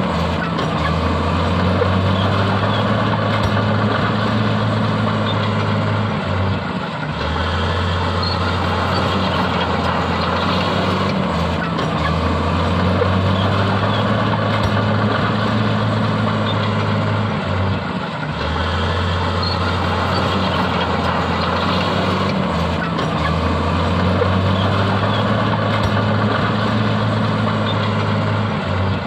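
Heavy diesel earthmoving machinery, bulldozer and dump truck engines, running steadily as a deep drone that dips briefly every five or six seconds.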